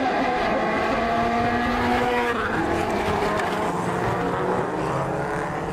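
Engines of a pack of old saloon race cars running hard together: several engine notes held at once over tyre and gravel noise. The sound changes abruptly about two seconds in to another set of engine notes.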